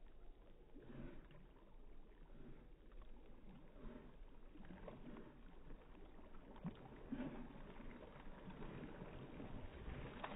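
Faint splashing and lapping of water as a small dog paddles through a lake, in soft irregular bursts.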